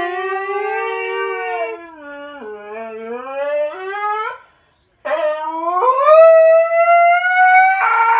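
A dog howling: one long howl that dips in pitch and then climbs, a short break, then a second howl rising steadily in pitch. Near the end a short, harsher burst of a different sound cuts in.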